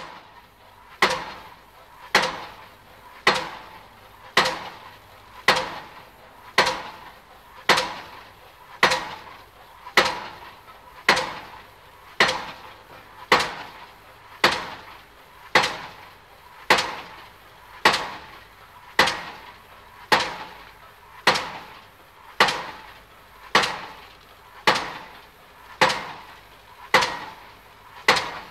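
Pile driver hammering a pile: one heavy blow a little over once a second, each dying away briefly, in an even unbroken rhythm.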